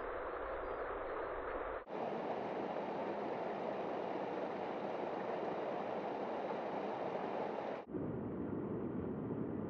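Rushing wind and trail noise of a mountain-bike descent picked up by helmet-mounted action camera microphones. The sound switches abruptly twice, about two seconds in and again near the end, from one camera's recording to another: the middle stretch is brighter and thin in the bass, the others duller and heavier in the low end.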